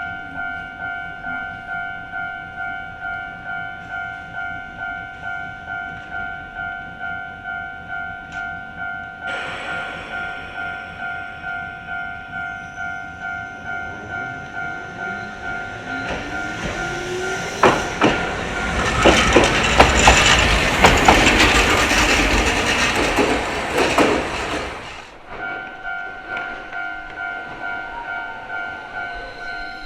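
Japanese level-crossing bell ringing its two-tone kan-kan at about two strikes a second. About two-thirds of the way in, a Hankai Tramway streetcar rumbles across the crossing for several seconds, its wheels clacking over the rail joints and drowning out the bell. The bell then keeps ringing.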